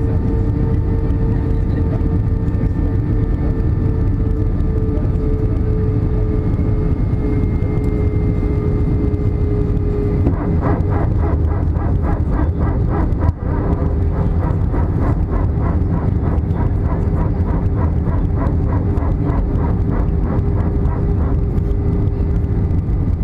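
Cabin noise of an Airbus A320 in descent: a steady rush of airflow and engine drone with a held tone that sinks slightly in pitch. About ten seconds in, a fast, even pulsing joins it and keeps going.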